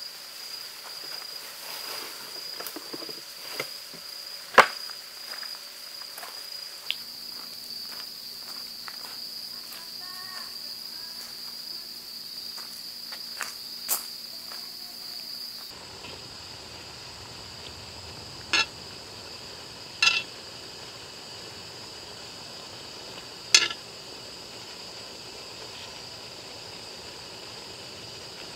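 Crickets trilling steadily at night, one continuous high note. A few sharp knocks and clicks stand out over it: one about four and a half seconds in, and three more close together past the middle.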